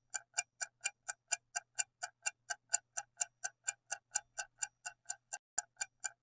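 Countdown timer sound effect: fast, even clock ticking at about four ticks a second, marking the time to answer a quiz question.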